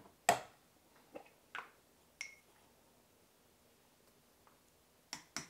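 Kitchen utensil handling while salt is spooned into a pot of soup: a sharp click, a few soft clicks and a brief ringing clink, then quiet, then two more clicks near the end.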